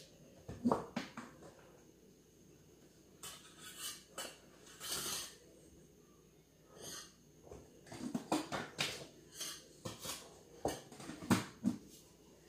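Irregular clinks, knocks and rustles of dishes and containers being handled on a kitchen counter, with a short hiss-like rustle about five seconds in and a quicker run of knocks near the end.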